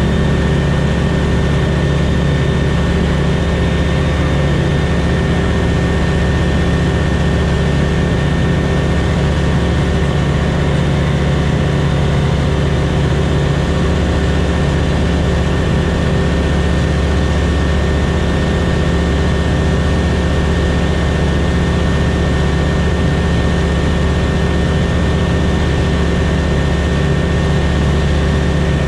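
Light aircraft's piston engine and propeller running steadily in cruise, heard from inside the cockpit as a constant drone.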